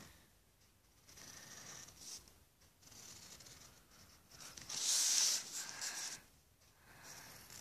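A drawing tool scratching on paper in uneven strokes, with a louder, longer stretch about five seconds in.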